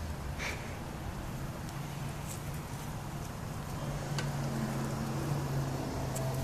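Steady low drone of a distant engine, with a few faint ticks over it.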